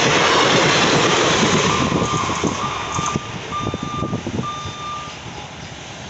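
Passenger train coaches rolling past over the rails, loud at first, then fading with a few wheel thumps as the last coaches go by from about two seconds in. A series of short, high electronic beeps sounds during the fade.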